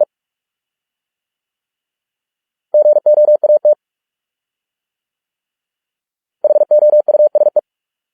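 Morse code at 45 words per minute: a steady, mid-pitched beep keyed on and off in fast dots and dashes. One short word starts about 3 s in and another about 6.5 s in, each lasting about a second, with silence between.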